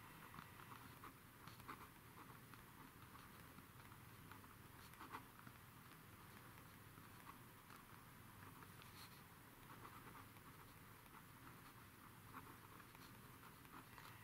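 Faint scratching and light ticks of a pen writing by hand on paper.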